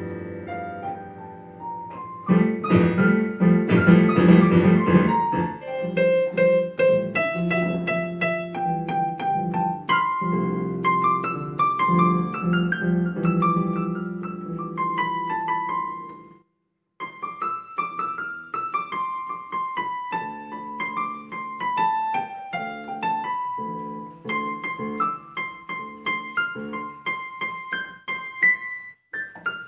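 Electronic keyboard with a piano voice, played by children: a single-note melody stepping up and down over held low notes. It stops briefly about halfway through, then goes on.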